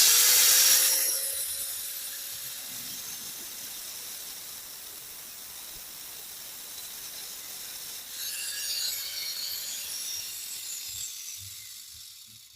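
Makita N9500N angle grinder switched on and running, with a high hissing grind that is loudest in the first second, eases off, swells again about eight seconds in, then fades.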